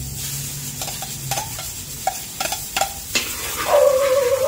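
Minced garlic sizzling in hot oil in a wok, a metal spatula stirring it with sharp clicks and scrapes against the pan. Near the end a loud, high wavering whine comes in over the frying.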